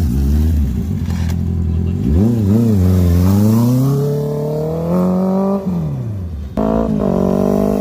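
Motorcycle engine revving: a quick blip about two seconds in, then the pitch climbs steadily as the bike accelerates away and drops off. Near the end it cuts abruptly to another engine running steadily at higher revs.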